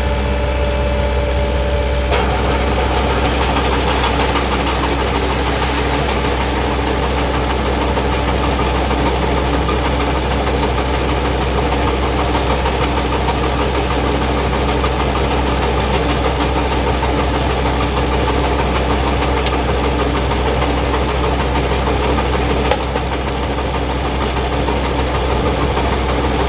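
Combine harvester engine running steadily, with a rushing, clattering layer of working machinery joining about two seconds in and a single sharp knock near the end.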